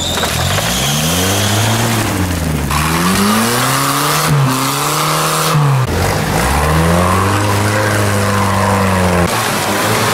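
Engines of UAZ-469 and GAZ-69 off-road 4x4s revving up and down repeatedly under load while driving through mud. The sound is in several short takes that change abruptly.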